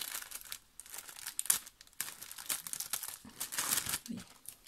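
Thin clear plastic bag crinkling and rustling in irregular crackles as hands work a small squishy pendant out of it.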